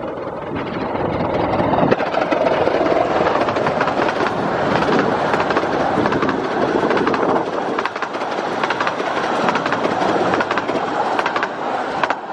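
A 15-inch gauge miniature steam train passing at speed, its wheels clattering over the rail joints. The sound swells about two seconds in and eases off near the end.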